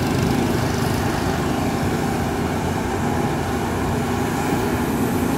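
Volvo EC210B LC excavator's diesel engine running steadily with a constant hum as the machine works its arm and bucket.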